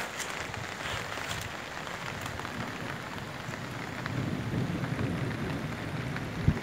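Rain with muddy runoff water rushing down an unpaved dirt road, a steady wash of noise that grows louder and lower about four seconds in. A single dull thump near the end.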